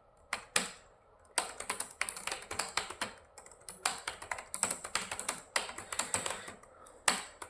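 Fast typing on a computer keyboard: a few separate keystrokes, then quick runs of key clicks with short pauses between the bursts.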